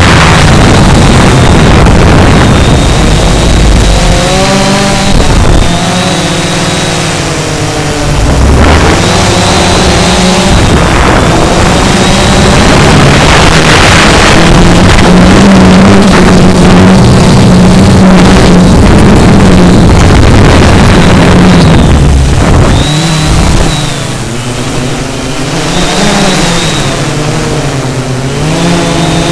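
Quadcopter motors and propellers buzzing, heard through the onboard camera with rough noise over them. The pitch holds steady through the middle and wavers up and down as the motors change speed.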